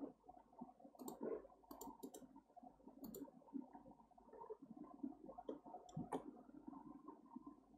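Faint computer mouse clicks, about six scattered short clicks, over quiet room tone.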